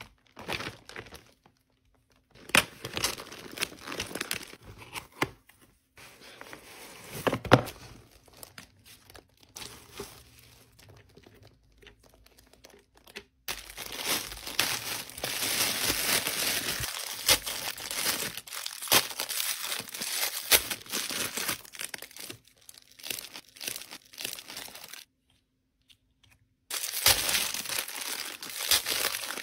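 Plastic packaging crinkling and tearing as a metallic mailer bag is opened and a clear plastic bag of small figures is handled and unwrapped: irregular rustles and crackles in stretches with short pauses, densest in the second half.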